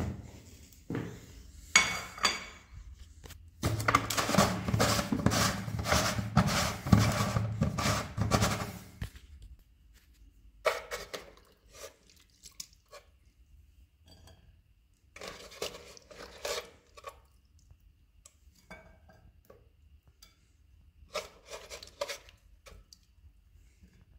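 Hand handling a plastic jar of dry, crunchy snack pieces: a few sharp clicks, then a dense crackling rustle for about five seconds as the hand rummages through the pieces. After that come short scattered clusters of clicks and clinks as pieces are set on a ceramic plate.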